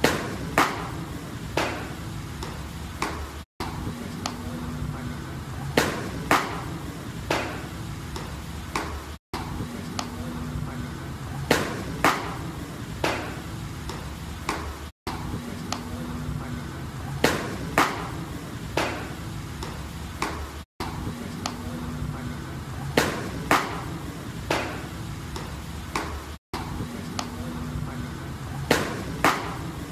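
Hard fastballs popping sharply into catchers' leather mitts in a bullpen, a few pops in quick succession with the loudest two close together. The same few seconds repeat about every six seconds, with a short dropout at each restart.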